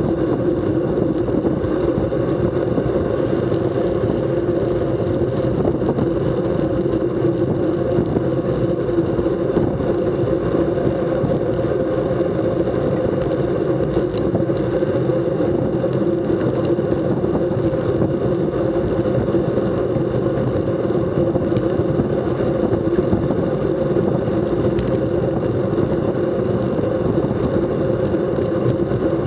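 Steady rush of wind buffeting the microphone of a camera mounted on a road bike at racing speed, with tyre hum on the asphalt underneath.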